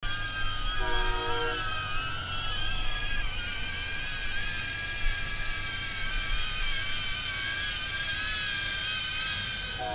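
DJI Avata FPV drone's motors and propellers whining: several high tones that waver up and down in pitch together as the throttle shifts, over a low rumble.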